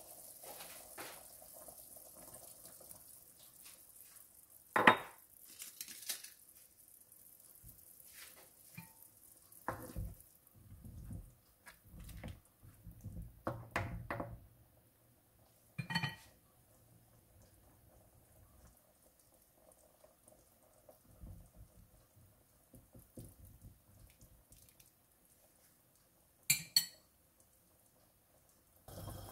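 A cooking utensil knocking and scraping against a nonstick wok as chicken pieces in broth are turned, in scattered clinks. The loudest comes about five seconds in and a quick pair near the end.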